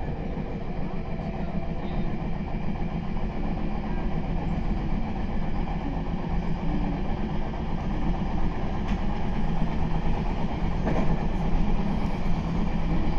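Meitetsu 9100 series electric multiple unit running along the track, a steady rumble of wheels and traction motors heard inside the driver's cab, with a couple of brief clicks late on.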